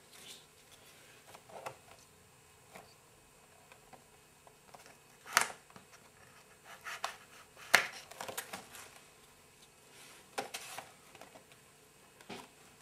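Hands carefully working open a small retail puzzle box: scattered light rustles and clicks of the packaging, with two sharper snaps about five and eight seconds in.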